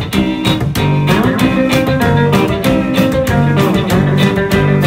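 Live band playing an instrumental passage: upright bass, drums, and acoustic-electric and hollow-body electric guitars, with a steady beat and no vocals.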